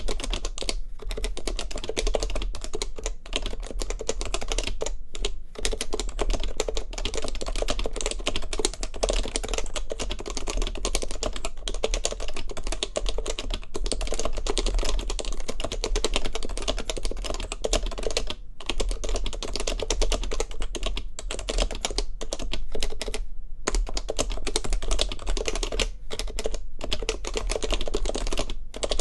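Continuous fast typing on the Heavy Grail custom keyboard with stock HHKB Professional Classic Topre switches, stock keycaps and a white ABS plate. The keystrokes come in a dense, unbroken run, with a handful of brief pauses.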